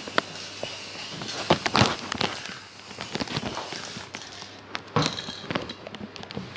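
Aerosol spray paint can hissing as it sprays, stopping about four seconds in, with scattered clicks and knocks.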